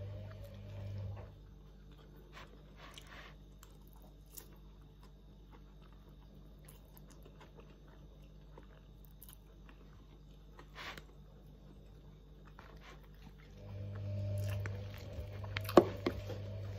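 Faint chewing of Pad Thai noodles and scattered light clicks of a metal fork against a plastic takeaway container, with one sharp click near the end. A low steady hum is heard in the first second and again over the last few seconds.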